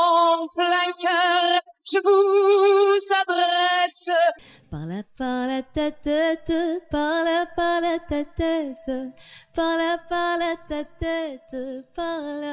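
Two women singing French songs one after the other, each voice with strong vibrato and little or no accompaniment. About four and a half seconds in, the first voice breaks off and a second, lower and softer voice takes over.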